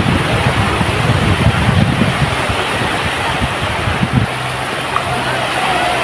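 Small waves washing onto a sandy beach, with wind buffeting the microphone in gusts that stop about four seconds in.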